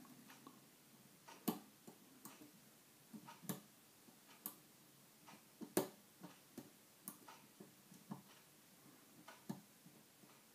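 Faint, irregular metallic clicks and taps of a lock pick and tension wire working inside a two-lever brass padlock as the levers are felt and lifted.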